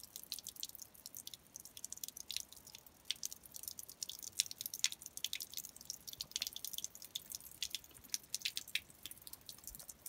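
Thin stream of water from a stone fountain's pipe spout splashing into its basin: an irregular patter of small drips and splashes.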